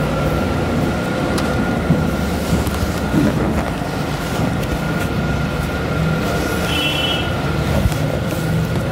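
Steady low rumble of background noise with a thin steady whine over it, and a short high chirp about seven seconds in.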